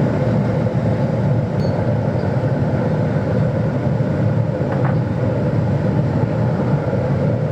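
Steady low mechanical rumble with no hammer strikes, and a couple of faint clicks about a second and a half in and near five seconds.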